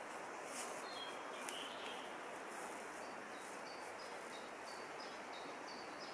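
Woodland ambience: a steady rushing background, with a small bird calling a quick series of short, high, repeated notes.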